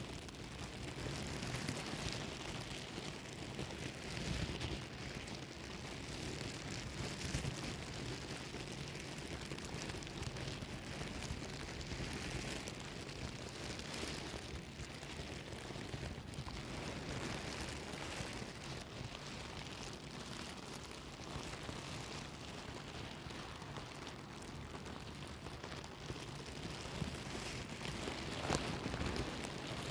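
Plastic bag rustling and crinkling without a break, with a few sharper, louder crackles, one of them near the end.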